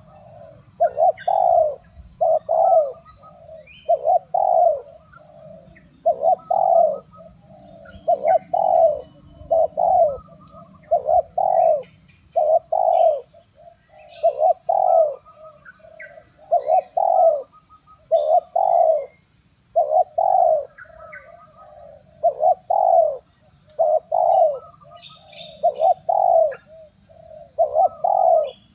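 Spotted dove (tekukur) cooing over and over: short, low coo phrases repeated about every one and a half to two seconds, with a faint steady high hum underneath.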